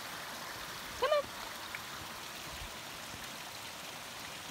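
Shallow mountain stream trickling and rushing over rocks, a steady hiss of running water. About a second in, one brief vocal sound rises and falls in pitch.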